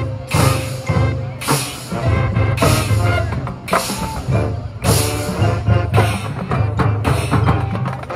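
Marching band playing brass and drums, with a loud hit about once a second over a heavy bass line.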